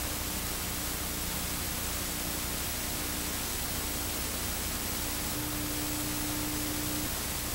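Steady hiss of TV static with faint low hum tones under it. One of the hums grows louder for a second or two near the end.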